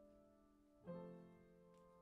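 Upright piano playing soft, sustained chords; a new chord is struck about a second in and left to ring and fade.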